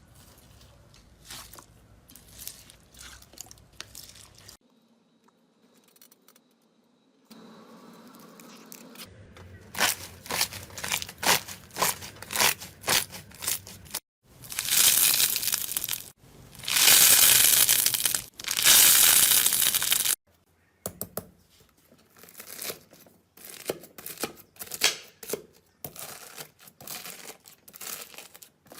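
Slime being worked by hand in a string of short clips: rapid crackling and clicking, with two long, loud stretches of continuous crackly noise about halfway through.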